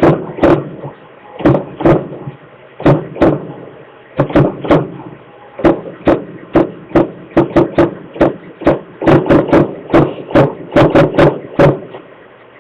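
A long run of irregular sharp knocks of unknown origin, some spaced out and some in quick clusters, coming faster from about two-thirds of the way in and stopping just before the end.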